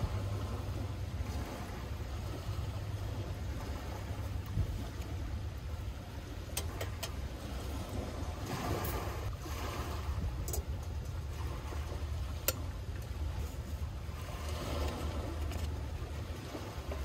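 Steady low rumble of wind and surf, with a few light clicks and taps as a collapsible wire-coil coffee dripper and other small camping gear are handled.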